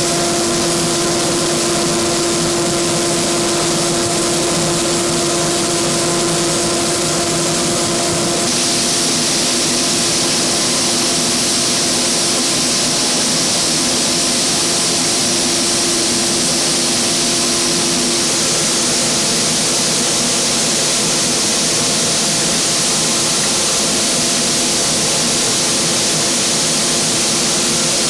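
Industrial sanding machine running steadily: a constant hum with a strong hiss over it. About eight seconds in, the hiss grows brighter and the hum tone weakens.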